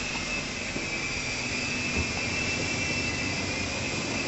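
Blade mCX micro coaxial electric RC helicopter in flight: a steady high motor whine over the hiss of its spinning rotors.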